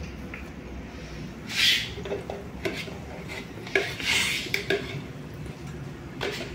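Stainless-steel kitchenware being handled: a deep-fryer basket and mesh strainer knocking, clinking and scraping several times, with two short bursts of hiss, over a low steady hum.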